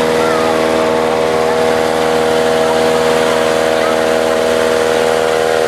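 A machine or engine running steadily at a constant speed, a loud even hum with no change in pitch or rhythm.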